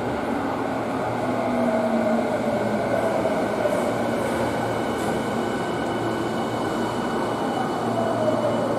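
Electric subway train pulling into an underground station and braking, its motor whine falling in pitch twice as it slows, over steady wheel and running noise.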